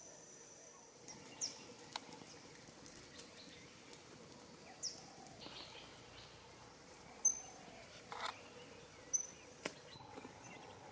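Quiet forest ambience: a steady high insect buzz that stops about a second in, then scattered short high bird chirps, with a few sharp clicks in between.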